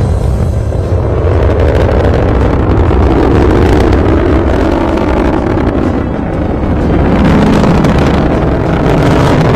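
A loud, steady roar with a deep rumble underneath.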